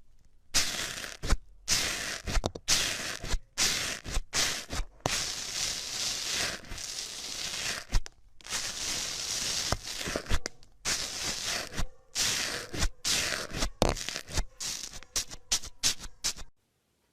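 Slime being worked by hand, stretched and squished, with sticky tearing and crackling sounds in quick irregular bursts. It stops suddenly near the end.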